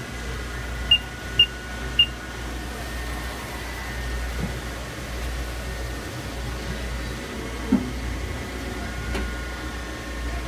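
Steady low hum with a faint high whine from running shop machinery, broken by three short high beeps in quick succession about a second in and a single soft thump about two-thirds of the way through.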